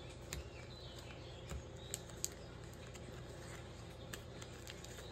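Light clicks and crinkles of metal survival cards in clear plastic sleeves being handled and set down one by one on a blanket, over a faint steady hum.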